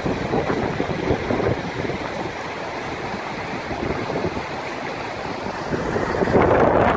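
Muddy flush water rushing out of a concrete box culvert in a steady wash, with wind on the microphone; it gets louder near the end.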